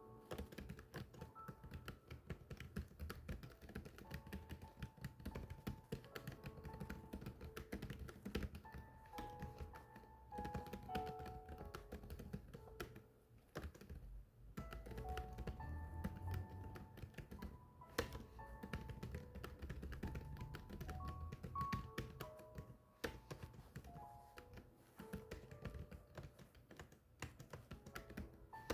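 Continuous fast typing on a keyboard, a dense run of key clicks with brief pauses, over background music of short melodic notes.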